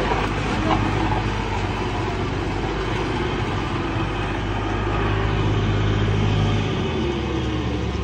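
Diesel engine of a small tandem road roller running steadily as the roller drives over loose rubble and mud; its engine note shifts near the end.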